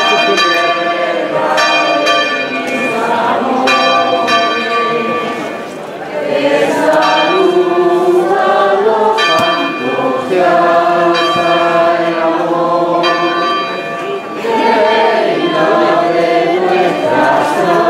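Church bells ringing, struck every couple of seconds with long ringing tones, while a crowd sings together, the voices strongest from about six seconds in.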